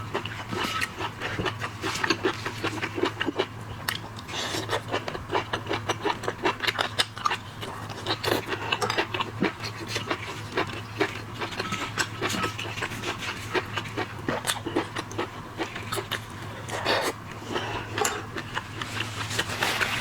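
Close-up eating of shrimp and crab: wet chewing, slurping and sucking with many quick crackling clicks, over a steady low hum.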